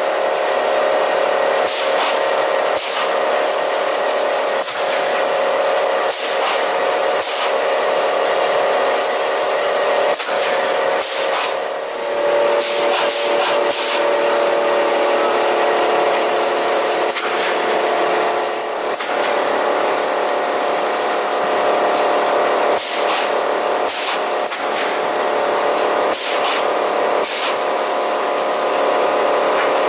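Toilet roll and kitchen towel rewinding line running in production: a steady mechanical hum with frequent sharp clicks and knocks.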